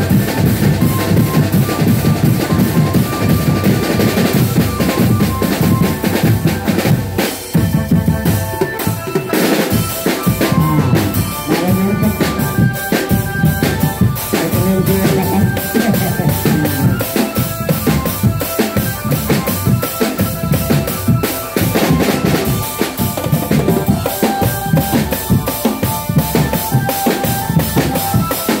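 Drum band playing a fast, steady beat on bass and snare drums, with a melody of held notes above it.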